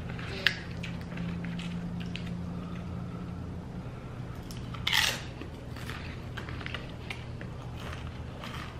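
A person eating nacho tortilla chips close to the microphone: a sharp click near the start, then one loud crunch of a bitten chip about five seconds in, followed by smaller crunches and chewing. A low steady hum runs underneath.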